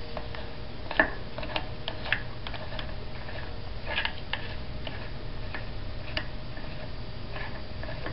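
Irregular light clicks and ticks of small metal parts of a bicycle coaster brake hub being handled and threaded back onto the axle by hand, over a faint steady hum.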